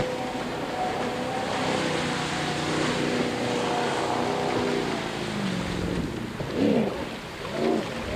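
Jet boat engine running hard over the rush of water, easing off and dropping in pitch about five seconds in. Near the end it swells briefly twice in pitch and level.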